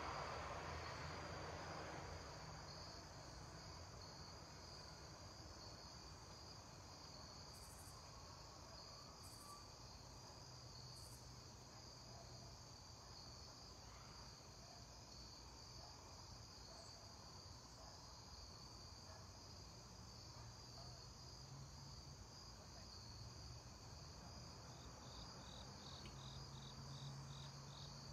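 Faint, steady chorus of crickets chirring in the evening, over a low hum. Near the end, another insect adds a rapid pulsing trill.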